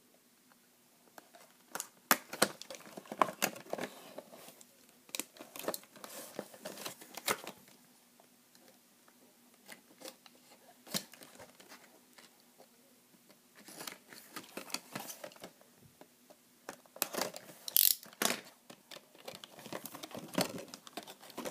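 Clear plastic packaging and its tape being slit with a utility knife and worked off a cube: scattered crinkles, crackles and ticks, with a quieter stretch in the middle.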